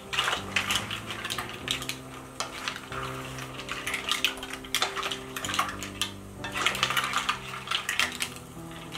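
Mussel shells clattering against each other and the pot as they are stirred with a wooden spoon: many quick, irregular clicks and knocks. Soft background music with held notes plays underneath.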